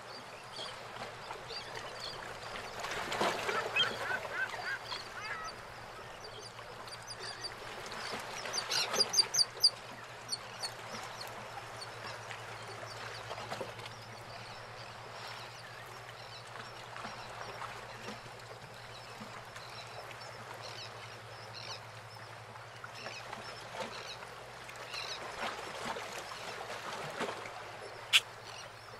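Birds calling around a harbour, with a loud run of rapid repeated calls about nine seconds in and scattered calls after, over the steady wash of water against moored boats. A single sharp knock near the end.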